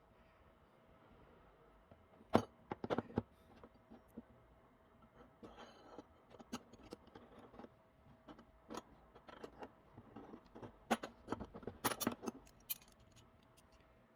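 Small hard objects clicking and clinking, handled piece by piece, in irregular taps with two busier flurries; the loudest click comes about two seconds in.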